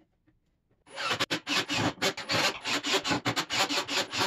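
Quick, irregular rasping and scraping strokes of hand work on plywood, starting about a second in after a near-silent start.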